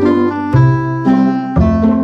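Instrumental background music, with new notes about twice a second over a low bass that changes about once a second.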